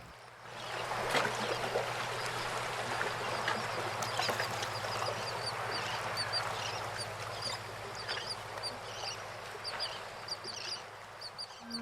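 Nature ambience: a steady rush of water, with many short, high bird calls repeating over it.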